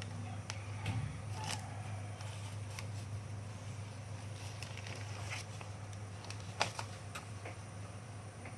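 Scattered sharp clicks and light rustling, as of objects being handled, over a steady low hum. The loudest click comes about six and a half seconds in.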